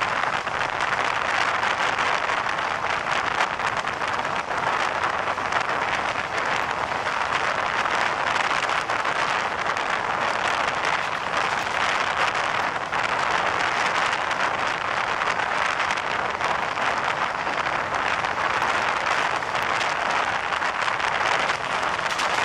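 Steady rushing noise of a train running at speed, heard from aboard at an open window: wind and the wheels on the track merge into one constant noise.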